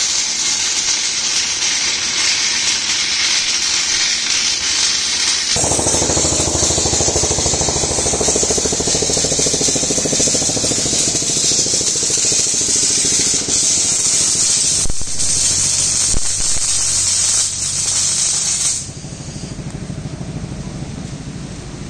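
MIG welding arc running on the steel of a loader bucket: a steady hiss that changes about five seconds in to a coarser, rapid buzz. The arc stops a few seconds before the end, leaving a quieter background.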